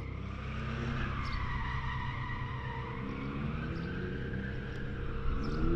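Drift car sliding: a long, wavering tyre squeal over the engine's running, with the engine pitch rising near the end.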